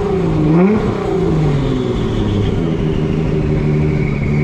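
A car engine revved once, its pitch rising and dropping back within the first second, then running at a steady speed.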